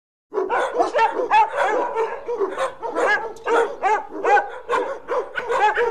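Dogs barking and yipping in a rapid, overlapping run of short barks at different pitches.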